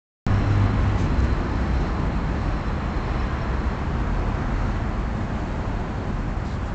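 A steady low rumble with a hiss over it, outdoor background noise.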